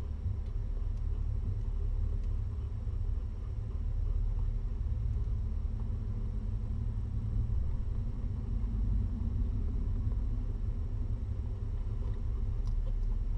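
Mother cat purring steadily while nursing her newborn kittens: a continuous low rumble.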